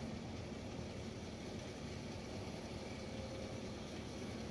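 Vehicle engine idling: a steady low hum with no change in pitch.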